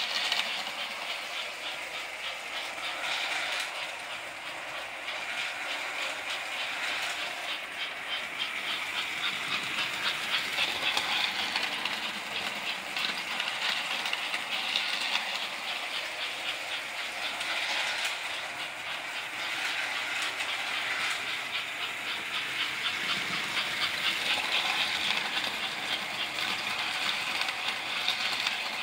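Vintage American Flyer toy trains running on tinplate track: a continuous rattling clatter of small wheels over rail joints with the whir of their electric motors. The loudness swells and eases as the trains pass nearer and farther.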